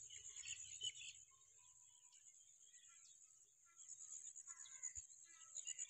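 Faint outdoor birdsong: scattered chirps and calls from several birds over a steady, high-pitched pulsing trill.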